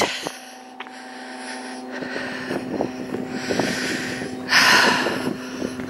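A vehicle engine running with a steady, even-pitched hum that comes in about a second in and slowly grows louder. Two short rushes of noise cross it, the louder one about four and a half seconds in.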